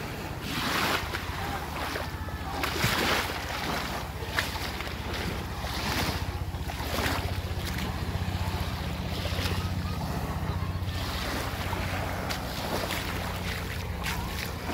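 A steady low engine hum runs under irregular noisy surges of wind buffeting the microphone and surf washing in.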